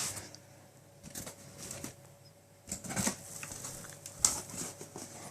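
Cardboard box flaps being opened and handled: scattered rustles and light knocks, with a sharp knock about four seconds in.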